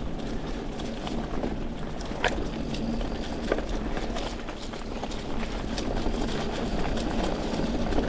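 Mountain bike rolling along a leaf-covered dirt trail: steady tyre and trail noise with scattered sharp clicks and rattles from the bike.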